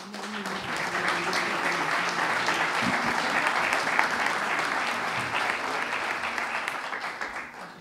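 Audience and dais applauding, a steady round of clapping that dies away near the end.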